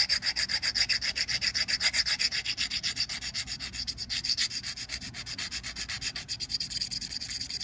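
Steel scissor blade scraped rapidly back and forth on a sharpening stone, an even run of several strokes a second.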